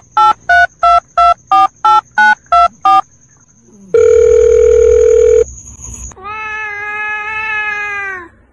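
Telephone keypad tones: nine quick two-note dialing beeps, about three a second, then a steady phone tone held for about a second and a half. Near the end comes a long drawn-out pitched call that drops in pitch as it ends.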